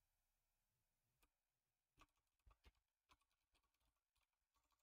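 A few faint, scattered computer keyboard keystrokes, about half a dozen separate clicks from about a second in, against near silence.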